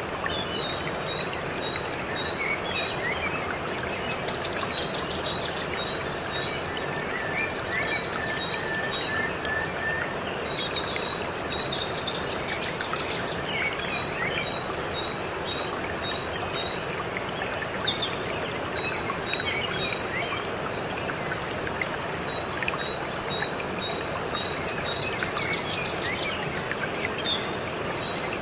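Steady rush of a waterfall, with songbirds chirping over it: runs of short, high chirps repeat throughout, and a fast, high trill sounds three times.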